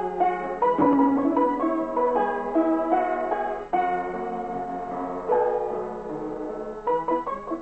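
Piano music: a lively run of short notes, with a few longer held notes about midway through.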